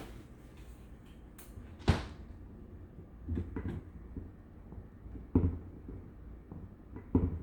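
Technics SL-D3 direct-drive automatic turntable knocking, a sharp knock about every two seconds over a low hum; the cause of the knocking is unknown to the owner.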